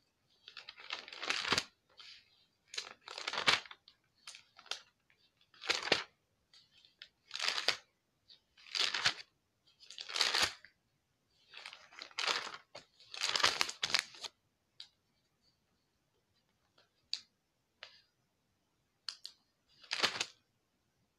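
Thin paper pages of a Bible being leafed through, about a dozen short rustles and flips, frequent at first, then a few faint ticks and one last rustle near the end.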